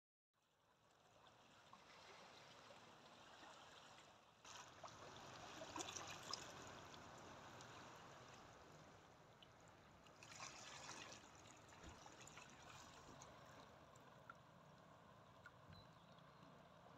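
Faint shallow seawater lapping and trickling over pebbles at the shoreline. It fades in at the start, with small fizzy washes about five and ten seconds in.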